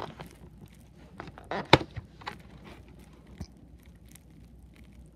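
A few scattered clicks and taps from small objects being handled, the loudest a sharp knock about a second and a half in.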